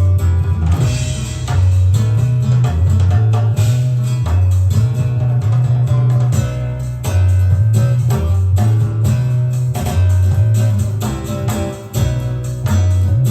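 Music played from cassette on an A&D (Akai) GX-Z top-line deck: a song with plucked guitar, a strong stepping bass line and drums.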